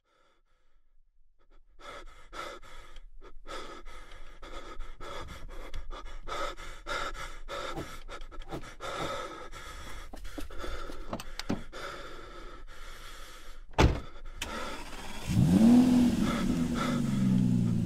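Rapid, heavy panting breaths, with one loud thump just before the last few seconds. A low droning tone then swells in, gliding up in pitch and holding.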